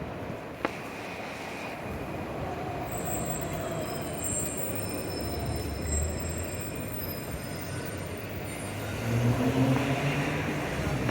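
Street traffic rumbling, with a thin high squeal for a few seconds in the middle. A sharp click comes just under a second in. An engine grows louder near the end.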